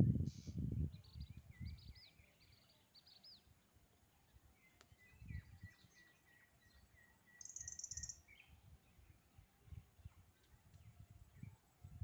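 Birds calling outdoors: a run of short whistled notes in the first few seconds, a longer held call in the middle and a brief buzzy call about eight seconds in, over low rumbling bumps that are strongest at the start.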